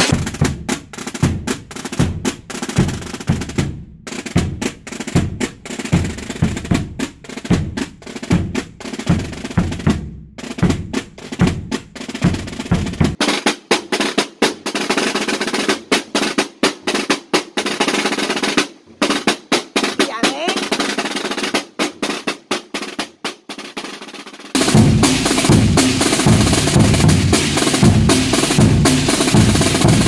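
Aragonese Holy Week drumming on tambores (snare-type drums) and bombos (rope-tensioned bass drums). Steady bass-drum beats under snare rolls give way, about 13 seconds in, to snare drum rolls alone. At about 24 seconds a bombo and a snare come in together, louder and fuller.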